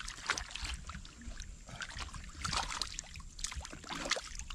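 Hands and catfish slapping and sloshing in shallow muddy water, a string of short, irregular splashes as the fish are grabbed by hand.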